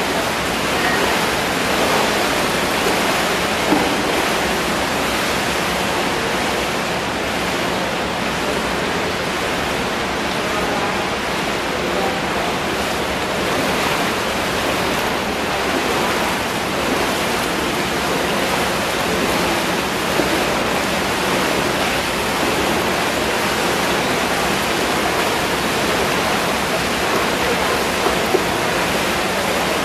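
Steady rushing water noise in an echoing indoor pool hall, even throughout with no distinct splashes.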